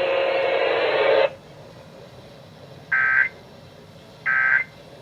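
Emergency Alert System end-of-message data bursts: two short, identical buzzy chirps about three and four and a half seconds in, spaced a little over a second apart. They come after a steady band of radio noise that cuts off abruptly about a second in.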